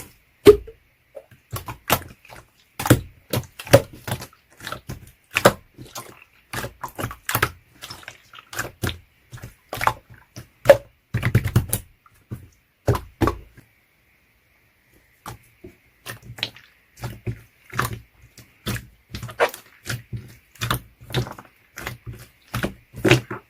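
Slime being pressed and squished by hand, making a run of irregular sharp clicks and pops. There is a brief pause a little past halfway.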